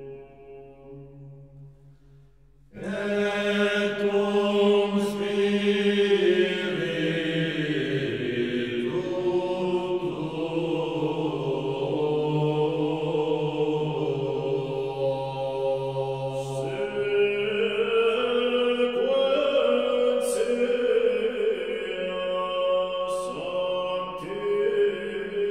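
Background music of voices chanting together in long, slowly changing held notes. It is faint at first and comes in fully just under three seconds in.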